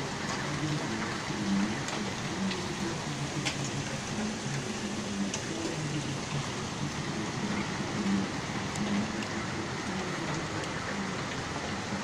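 Heavy rain falling steadily, with a few sharp ticks of drops striking close by.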